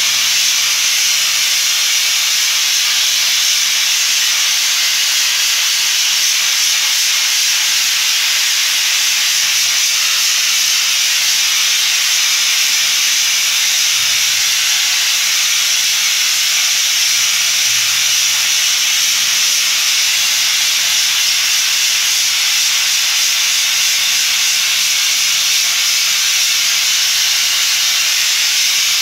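Handheld compressed-air spray gun spraying continuously: a steady, unbroken hiss of air and spray.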